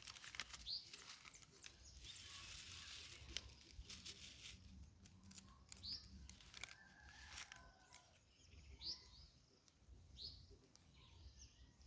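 Faint bird chirps: a short, high note repeated four times, a few seconds apart, with a few soft clicks between them.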